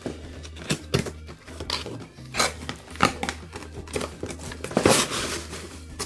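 Cardboard toy box being opened by hand: irregular scrapes, rustles and short tearing noises as the flaps and tape are pulled open, over a low steady hum.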